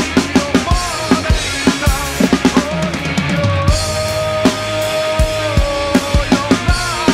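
Acoustic drum kit played along to a rock recording: snare, toms, bass drum and cymbals, with a quick fill of rapid strokes about two to three seconds in. The song's long held note runs under the drums in the second half.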